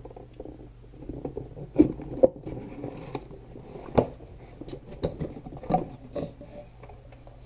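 A cardboard box being opened by hand: flaps pulled back and the packed contents shifting and rustling, with a run of sharp taps and knocks, the loudest about two seconds in and again about four seconds in.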